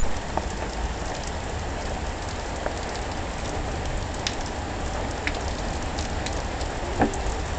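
Steady heavy rain falling on surfaces during a thunderstorm, an even hiss with scattered drop ticks and a low rumble underneath.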